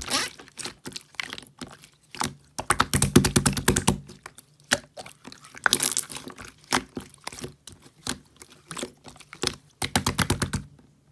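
Irregular sharp clicks and crackles, with two dense rapid runs of clicking, one early and one near the end.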